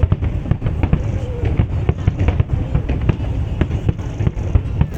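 Aerial fireworks bursting in rapid succession: a dense run of sharp bangs and crackles, several a second, over a constant low rumble.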